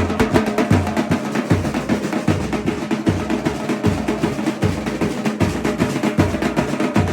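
Stadium supporters' drum section (bateria) playing a steady samba-style groove: deep bass drums striking about once every 0.8 s under dense, fast snare and percussion.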